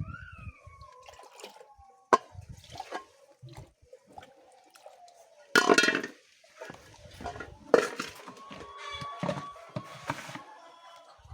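Chickens making drawn-out gliding calls amid sharp clicks, with two short loud splashes of liquid about halfway through.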